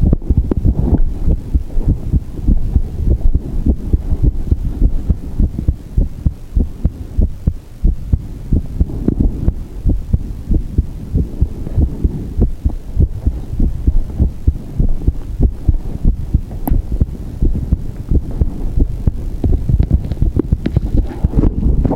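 A human heartbeat, loud and close, as a run of repeated low thumps. Near the end the sound changes, which the owner takes for an irregular beat (a 'перебой').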